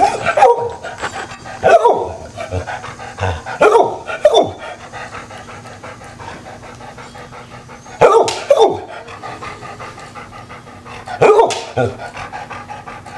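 A dog giving happy, excited barks, mostly in pairs every few seconds, and panting between them.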